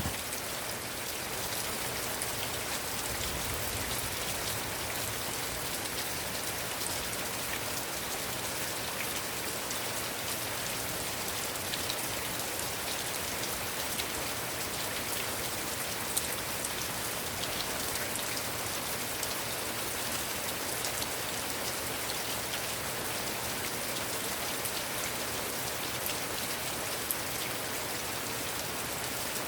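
Heavy rain falling steadily, with a few sharper drop hits now and then.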